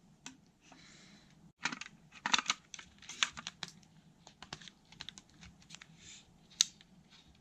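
Hands handling small plastic camera accessories: an irregular scatter of light clicks and taps.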